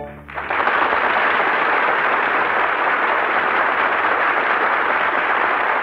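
Studio audience applauding, breaking out suddenly as the orchestral music stops and holding steady.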